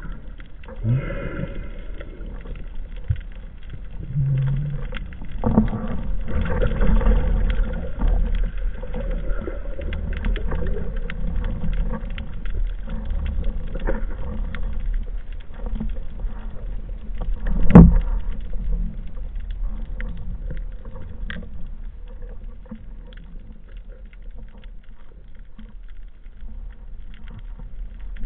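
Underwater ambience: a low rumble of moving water with many faint crackles, a short low hum about four seconds in, and one sharp knock about eighteen seconds in.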